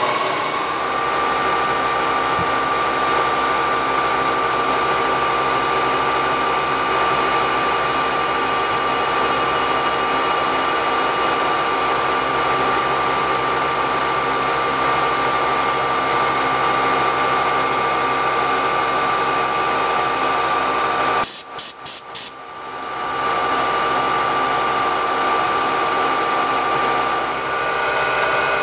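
CNC milling machine running a profiling cut, its spindle giving a steady whine over a steady rushing hiss as an end mill cuts through brittle plastic sheet. About three-quarters of the way in the sound breaks off briefly with a few sharp clicks, then resumes.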